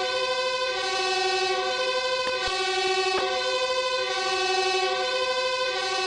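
Fire engine siren sounding continuously, a chord-like stack of steady tones that shifts back and forth in a slow repeating cycle. A few sharp clicks cut through it, about two and three seconds in.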